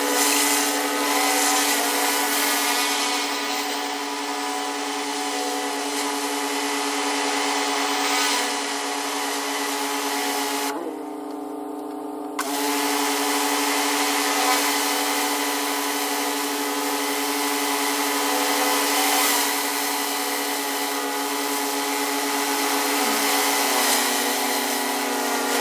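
Pressure washer running steadily, its motor-driven pump humming under the hiss of the high-pressure water spray hitting concrete. About eleven seconds in the spray stops for a second or two while the machine keeps running, then starts again.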